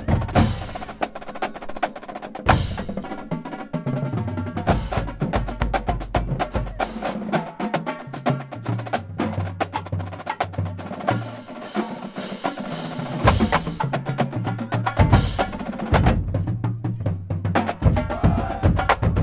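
Marching drumline playing a cadence: rapid snare and quad-tom strokes over tunnel bass drums stepping through low pitched notes. The drumming thins out briefly about sixteen seconds in, then picks up again.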